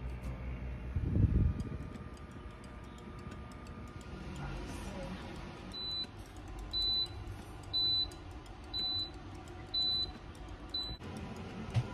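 Oven's end-of-cycle beeper: six short, high beeps about a second apart, starting about halfway through, signalling that the dough-proofing (fermentation) program has finished. A dull low thump about a second in.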